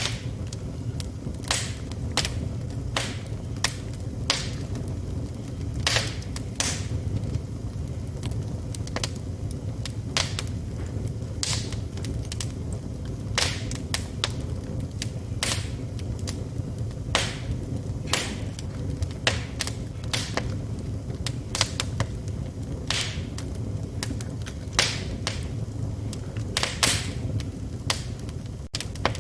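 Wood fire burning in a fireplace: a steady low rumble of flames with sharp crackles and pops at irregular intervals, a few a second, some louder than others.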